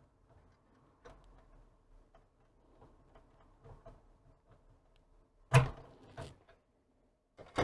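A wiring plug being worked off a circuit-board connector inside a CRT monitor chassis: faint small plastic clicks and rustling, then two louder knocks less than a second apart near the end.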